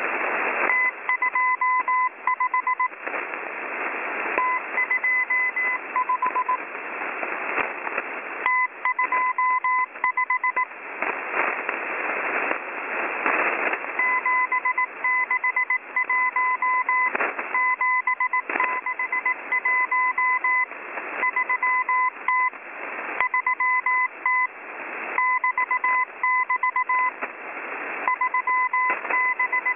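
Morse code from the Russian number station M01, received on a shortwave radio. A single-pitch beep is keyed on and off in dots and dashes, in groups separated by gaps, over hissing static that swells between the groups.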